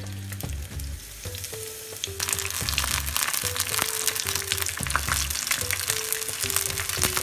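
Batter-coated apple rings frying in hot oil: a dense sizzle full of fine crackles that comes in loudly about two seconds in and keeps on. Background music with a simple repeating melody plays underneath.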